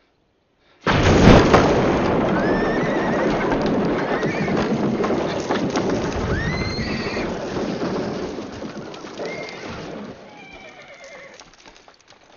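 A sudden loud dynamite blast about a second in that blows apart a railway boxcar, followed by a long rush of falling wreckage that fades away over about ten seconds. Horses whinny several times through it.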